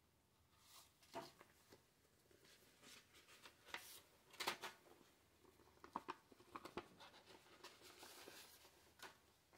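Paper handling: a stiff card mailer and its paper contents rustle, crinkle and tick in irregular short bursts as they are opened and slid apart, loudest about halfway through.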